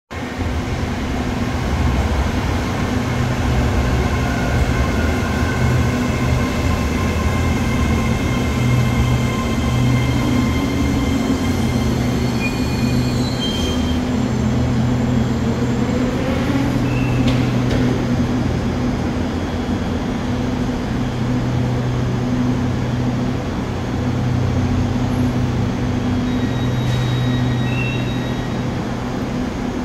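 SRT Red Line electric commuter train pulling into a station platform and slowing to a stop, with a steady low hum. High whines and squeals come and go during roughly the first half as it brakes, then the hum carries on steadily.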